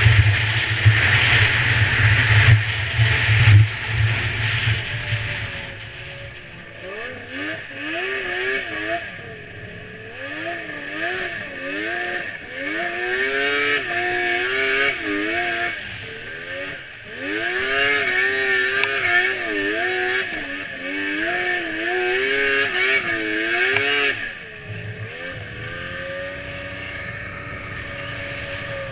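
2002 Yamaha SX Viper snowmobile's two-stroke triple engine under way. For the first few seconds a loud rushing noise, wind on the microphone, covers it. From about six seconds in, the engine note rises and falls over and over as the throttle comes on and off, then settles to a steady note near the end.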